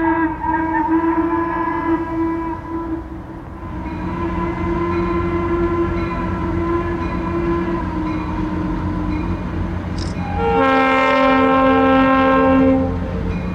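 Locomotive horn sounding long blasts over the low rumble of the approaching train. The last blast, near the end, is the loudest, a full chord.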